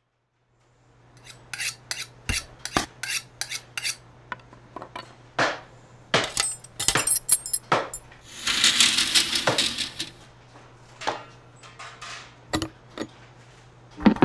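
Intro of a dubstep track: irregular metallic clinks and clattering knocks over a steady low hum, with a hissing swell about two thirds of the way in. Pitched music starts at the very end.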